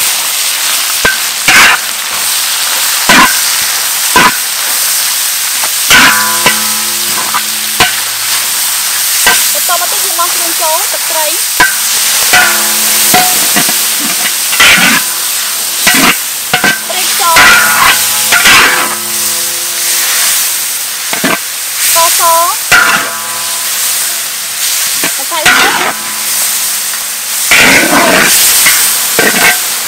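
Beef sizzling in hot oil in a wok while a metal spatula stirs it, with frequent scrapes of the spatula against the wok.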